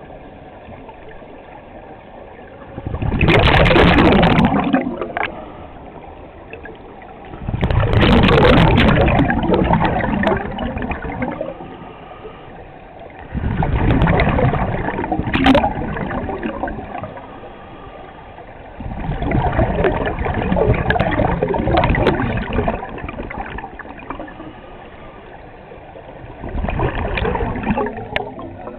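Scuba regulator exhaust bubbles from a diver breathing out close to the camera underwater: five long bubbling bursts, one about every five to six seconds in a breathing rhythm, with a quieter steady background in between.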